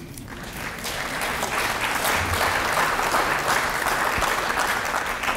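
Audience applauding after a poetry reading, swelling over the first couple of seconds, then holding steady and easing slightly near the end.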